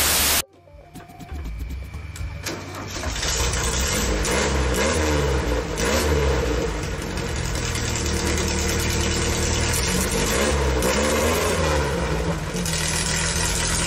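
Air-cooled VW Beetle flat-four engine on a home-built ATV running and revving up and down several times. A short burst of TV-static hiss comes just before it at the very start.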